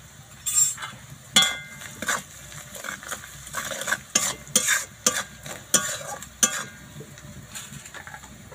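A spatula stirring and scraping around a metal kadai, with repeated sharp clacks against the pan, some ringing briefly, as onions with turmeric and chilli powder fry in oil with a light sizzle. The strokes thin out near the end.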